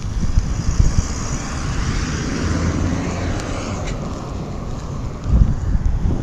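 A vehicle passing by, its tyre and engine noise swelling over the first couple of seconds and fading away about four seconds in, with wind buffeting the microphone.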